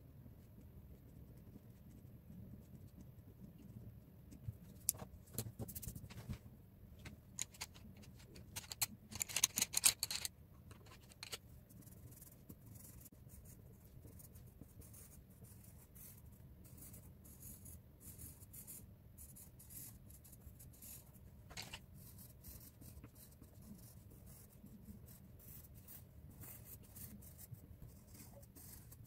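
Pen and coloured-pencil strokes scratching on paper over a wooden desk: a steady run of short, light scratches, with a louder flurry of strokes about nine to ten seconds in.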